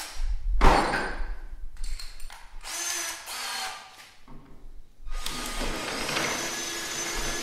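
Power drill boring a 1/2-inch bit through a plastic snowmobile ski, stepping up a 3/8-inch pilot hole. The drill starts and stops several times, then runs steadily for the last two seconds or so.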